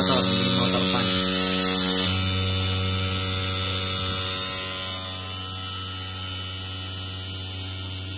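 Small electric motor running steadily on the UPS battery, a buzzing whine with a bright hiss on top. The hiss drops out about two seconds in, and the sound gets somewhat quieter around the fourth or fifth second.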